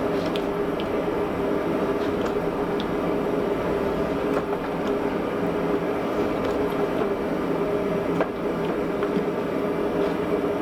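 Forge running steadily with a constant hum and a few faint crackles, while the workpiece heats toward welding heat for a forge weld.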